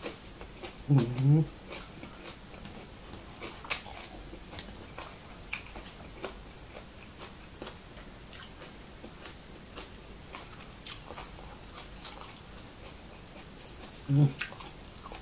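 Close-miked chewing of raw herb leaves and minced buffalo larb: scattered small wet crunches and mouth clicks. Two short closed-mouth hums, about a second in and again near the end.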